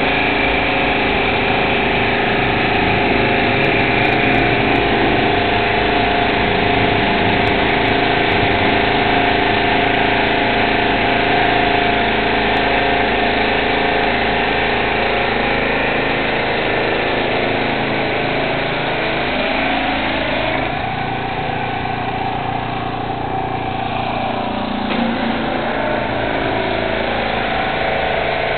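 Pressure washer's engine running steadily, with the hiss of the high-pressure spray jet on concrete. The engine note shifts in pitch for a few seconds about two-thirds of the way through.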